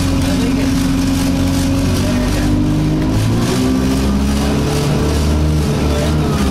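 Alexander Dennis Enviro200 bus heard from inside its cabin while moving: the diesel engine drones steadily, its note shifting about halfway through, under a steady vibration noise in the body that is annoying to ride with.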